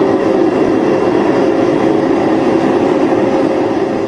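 Homemade waste-oil furnace burning with a steady, even rushing noise, deepest in tone around the low-middle range.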